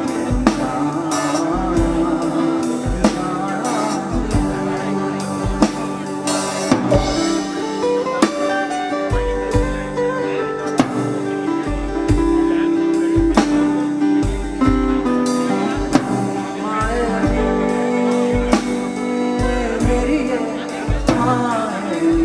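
Live band music: a strummed acoustic-electric guitar over a Sonor drum kit keeping a steady beat, with a man singing near the start and again near the end.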